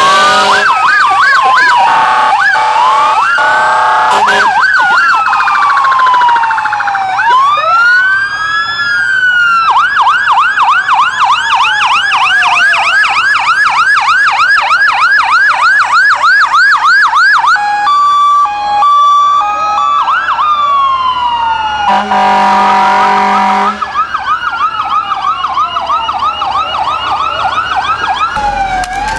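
Electronic sirens of parade fire and emergency vehicles, several overlapping: slow rising-and-falling wails and a long stretch of fast yelping. About two-thirds through come short steady horn-like blasts, then a longer held horn tone a few seconds later.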